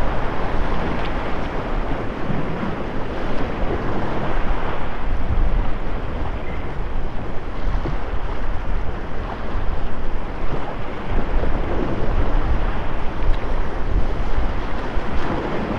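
Waves washing and breaking over jetty rocks, a steady surf noise, with wind buffeting the microphone.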